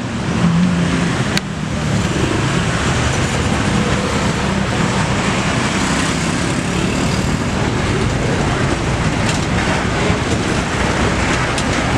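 Steady noise of heavy road traffic passing close by: the rush of engines and tyres, with a low engine hum in the first couple of seconds. No horn melody sounds.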